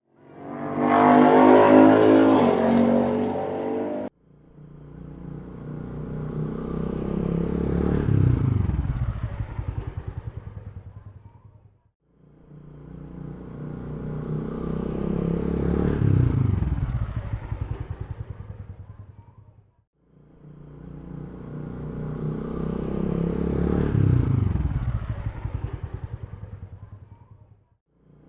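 Vehicle engine: a loud burst with rich engine harmonics for about four seconds that cuts off suddenly, then an engine sound that swells and fades with falling pitch, repeating the same way about every eight seconds.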